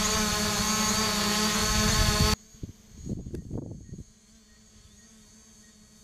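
Small quadcopter drone hovering close by, a loud steady buzz of its propellers that cuts off suddenly about two seconds in. After that only a faint hum of the drone farther off, with a few brief soft sounds near the middle.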